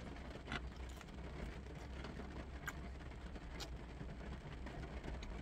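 Quiet car-cabin background: a low steady hum and faint hiss, with a few soft clicks scattered through it.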